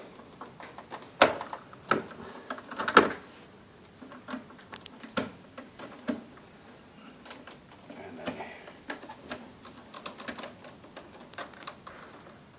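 Clicks and knocks of hand work on an air conditioner's indoor-unit wiring, as tools and parts are handled. A few sharp, louder knocks come in the first three seconds, then lighter ticking.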